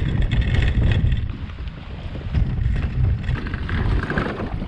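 Irregular low rumbling of wind and handling on the camera microphone as a kayak is moved out onto the water, with water disturbed against the hull.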